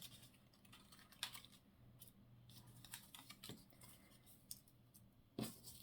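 Faint scattered paper rustles and light taps from small cut-out paper pieces being handled and sorted on a desk, with a slightly louder tap near the end.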